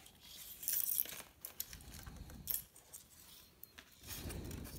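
Faint handling noise of fingers fitting a tiny wire plug into an RC airplane's receiver circuit board: scattered light clicks and a brief rustle about a second in.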